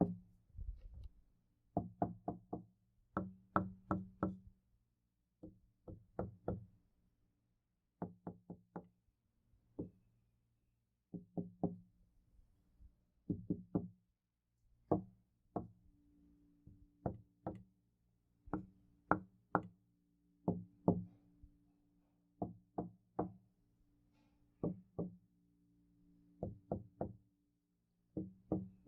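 Knuckles knocking on a door in quick groups of two to four raps with short pauses between, the door ringing with a low hum under the knocks. Recorded in 3D (binaural) sound.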